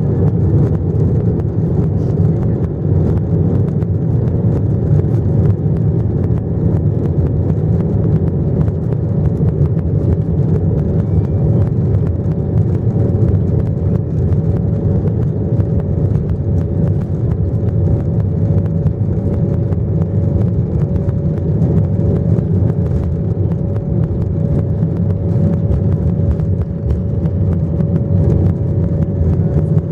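Airliner jet engines heard from inside the cabin during takeoff: a loud, steady low rumble with a constant whine from the engines.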